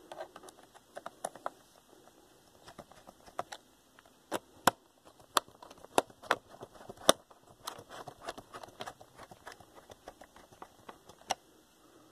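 Irregular sharp clicks and taps of the Gateway laptop's plastic case being handled while its bottom panel is refitted and screwed down, with a few louder knocks among the lighter ones.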